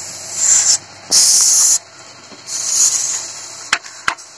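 Bursts of high hiss, then two sharp clicks near the end as the inverter welder's plastic rocker power switch is pressed.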